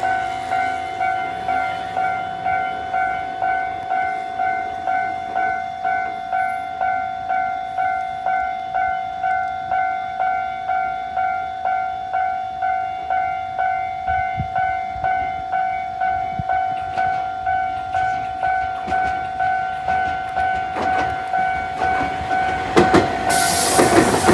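Railway level-crossing warning bell dinging steadily, about one and a half times a second. In the last second or so, an Iyotetsu 3000 series electric train arrives and passes, its running noise and wheel clatter rising over the bell.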